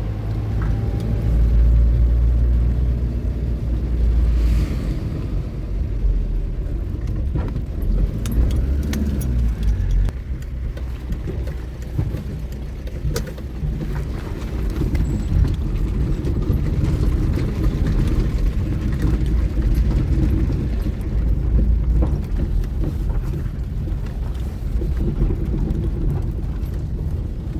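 A car driving, heard from inside the cabin: a steady low engine and road rumble with scattered small clicks and knocks.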